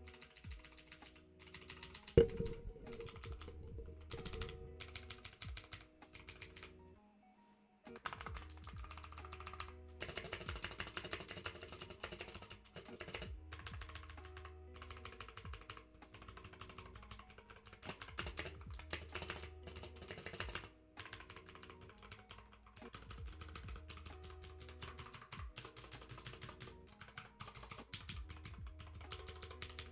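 Mechanical keyboard with clicky Cherry MX Blue switches being typed on in rapid bursts of sharp clicks, with a short pause about seven seconds in.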